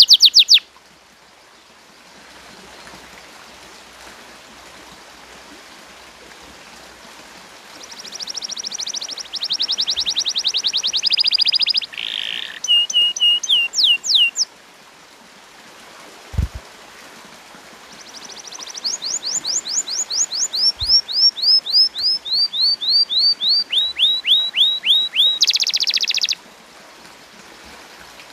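Domestic canary singing in bursts separated by pauses. About 8 seconds in comes a fast high trill, then a few sliding notes, then a long run of quick falling whistled notes that ends in a loud harsh burst. A single soft knock comes in one of the pauses.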